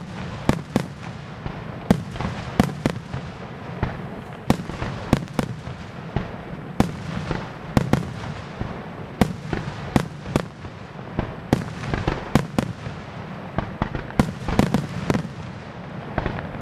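Aerial firework shells bursting one after another in a display, two or three sharp bangs a second over a continuous low rumble.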